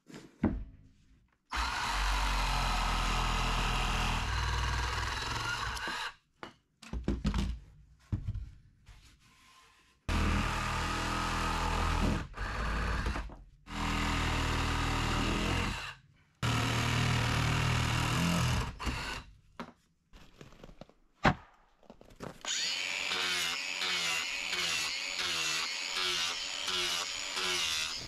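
Cordless reciprocating saw cutting through wet lumber in four runs of a few seconds each, stopping in between. Near the end a different tool takes over: a grinder with a sanding disc running steadily on the wood.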